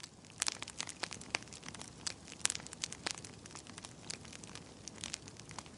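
Fire crackling: irregular sharp pops and snaps over a steady hiss.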